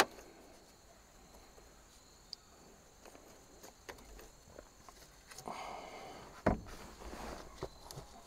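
Quiet handling of metal truck steering parts while a steering universal joint is fitted: a sharp click at the start, scattered light ticks, and a knock about six and a half seconds in. Faint steady high insect buzzing sits underneath.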